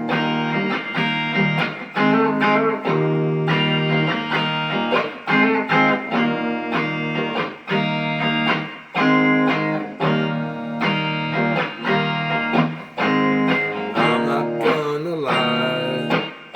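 Guitar music: chords played in a steady rhythm, with no voice.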